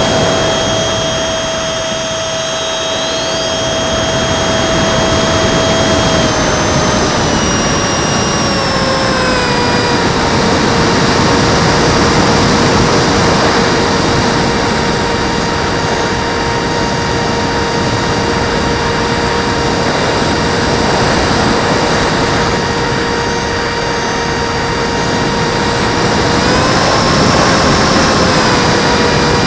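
Electric ducted fan of a ParkZone Habu RC jet, heard from on board, whining steadily over loud rushing air. The fan's pitch drops a few seconds in as it slows, rises briefly near the end, then drops again.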